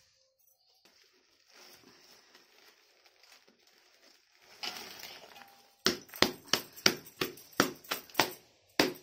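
Faint rustling and crackling of charred leaves being pulled apart by hand. About two-thirds of the way in, a loud run of sharp, evenly spaced knocks or claps starts, about three a second.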